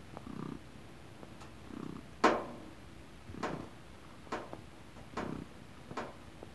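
Black cat purring while mounting and kneading a plush teddy bear. The purr comes in pulses about every second and a half, with several short sharp sounds in between, the loudest about two seconds in.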